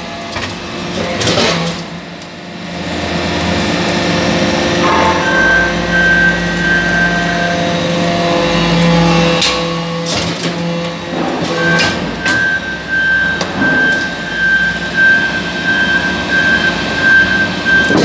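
Hydraulic briquetting press for metal chips running: a steady hum from the hydraulic power unit, with a thin high whine that sets in about five seconds in, drops out, and returns from about twelve seconds. A few short metallic knocks come from the press as it cycles.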